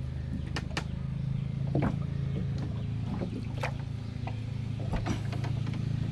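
Small boat's engine running steadily at idle, with a few scattered knocks and splashes as a hooked pole works in the water beside the hull.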